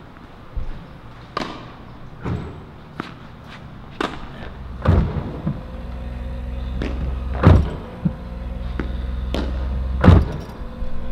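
Tennis balls being hit, a dozen or so sharp pops roughly one a second, from a ball machine firing balls and a racket striking them back. From about halfway a low steady drone builds underneath.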